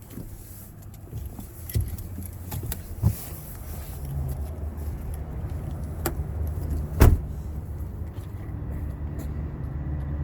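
A vehicle engine idling with a steady low hum that grows stronger partway through, with a few sharp clicks and one heavy thump about seven seconds in.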